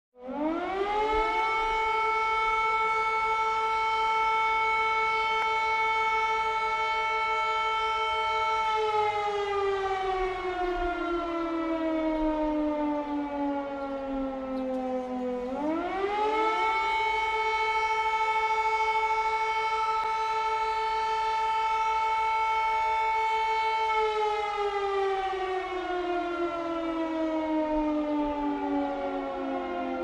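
Civil-defence air raid siren wailing: it winds up quickly to a high steady tone, holds it for about eight seconds, then slowly falls in pitch over about seven seconds. It winds up again, holds, and is falling once more near the end.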